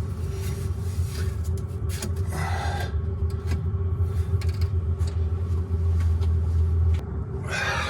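A steady low rumble that cuts off suddenly about seven seconds in, under irregular scraping and rubbing as exhaust manifold gasket and clamp parts of a Detroit Diesel 6V92 engine are handled and fitted by hand.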